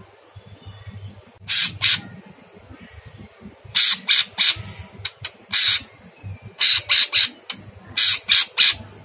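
A blue-winged leafbird (cucak cungkok) in full song, giving loud, harsh, rasping calls. The calls come in about five bursts of several quick notes each. This is the rough, coarse-voiced singing that keepers call 'kasar'.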